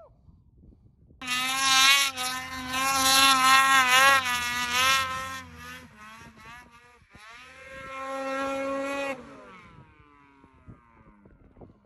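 Two-stroke snowmobile engine revving hard at high rpm in two long pushes of the throttle while the sled is worked through deep powder. The pitch wavers during the first push and holds steady in the second. It ends in a falling whine as the throttle closes.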